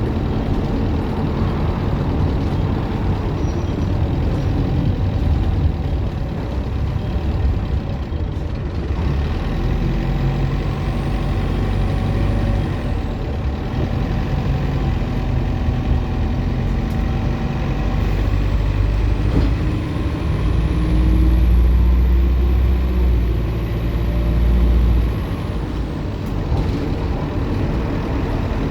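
Optare Solo M950 bus engine running under way, with a thin high turbocharger whine. The whine climbs briefly a few seconds in. It rises again for a longer stretch as the engine pulls harder and louder, then dies away about three seconds before the end.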